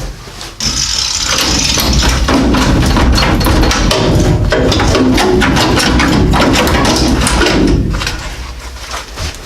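A power cutting tool cutting through old car body sheet metal, rattling and chattering hard against the panel. It starts about half a second in and winds down about a second before the end.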